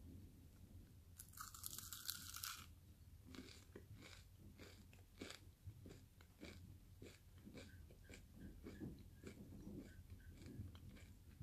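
Someone biting into and chewing a crisp chocolate-caramel cornflake cluster: a longer crackling crunch about a second in, then quiet, irregular crunches of chewing, roughly one or two a second.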